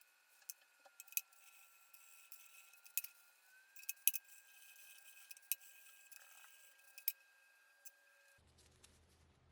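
Scattered sharp clicks and light clinks, like small hard parts or tools being handled, over a faint steady high whine that cuts off near the end.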